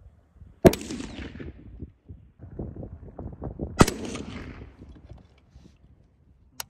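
Two shots from an SVD Dragunov semi-automatic sniper rifle (7.62×54mmR), about three seconds apart, each trailing off in an echo over about a second. A short sharp click near the end.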